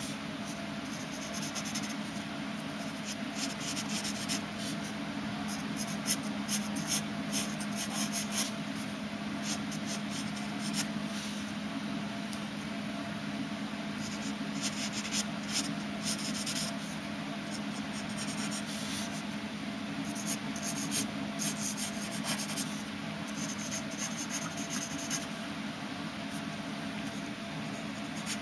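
Graphite pencil scratching on paper in runs of short sketching strokes, with pauses between the runs, over a steady low hum.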